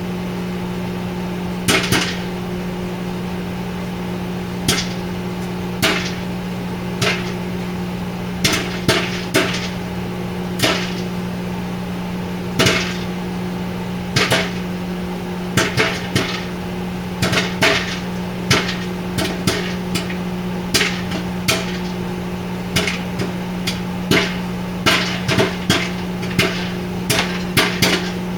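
A 1000-watt microwave oven running with a steady hum while popcorn kernels pop inside a plastic bowl covered with a paper plate. The pops are sharp and few at first, then come more and more often toward the end.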